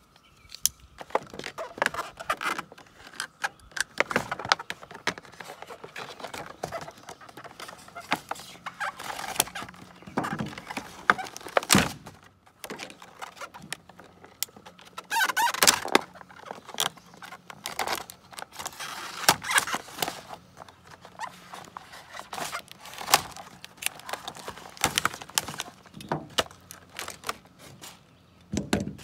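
Stiff plastic blister-pack packaging being handled and pried open by hand: irregular crackles, clicks and knocks of hard plastic, with a few louder bursts of crackling.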